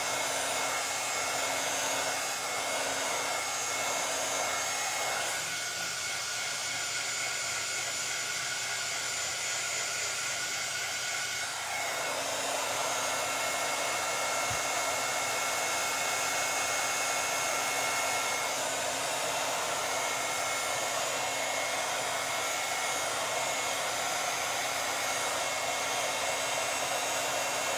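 Handheld heat gun blowing steadily, its fan running with a faint motor whine, warming epoxy resin on a tumbler to thin it and get the colours swirling. Its tone shifts about five seconds in and again about twelve seconds in.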